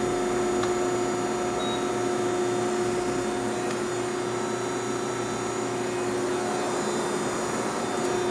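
Durma AD-S 30175 press brake's hydraulic power unit running, a steady hum with one constant tone.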